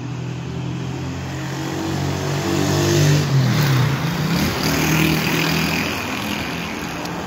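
A motor vehicle's engine running close by, growing louder toward the middle and then fading. About halfway through its pitch drops and then climbs again as it accelerates.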